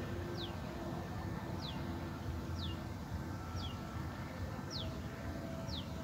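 A bird gives a short, high whistle that falls in pitch, six times at about one a second, over a steady low rumble.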